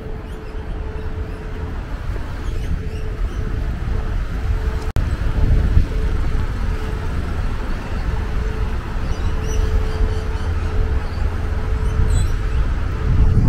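Street ambience: a steady rumble of road traffic, heaviest in the low end, with a brief cut-out about five seconds in.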